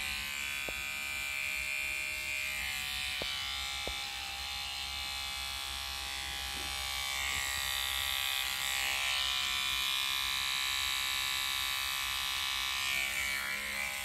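Electric toothbrush buzzing steadily, held against a small flower to vibrate its pollen loose for hand-pollination.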